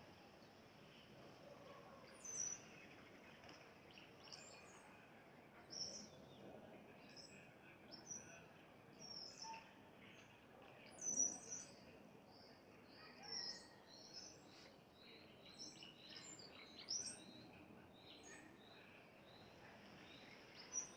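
Small birds chirping: many short, high calls, one to several every second, some overlapping, faint over a steady background hiss. Birds calling as they settle to roost for the night.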